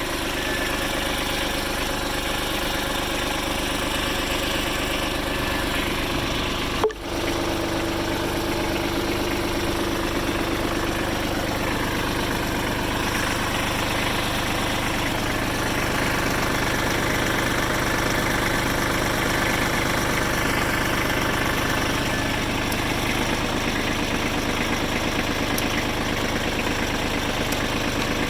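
2001 Kubota B21 compact backhoe loader's diesel engine idling steadily, with a brief break in the sound about seven seconds in.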